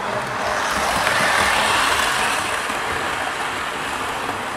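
A model train running on the layout's track: the whir of its motor and the rumble of its wheels on the rails grow louder for a second or two, then fade again as it passes.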